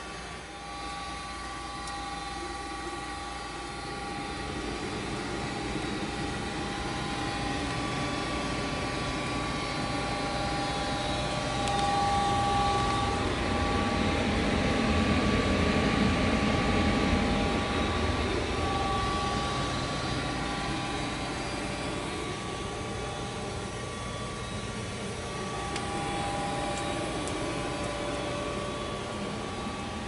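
Goodman 95% AFUE gas furnace running in heat mode: a steady whir of its motors and burners with a faint constant whine. It grows louder for a few seconds in the middle.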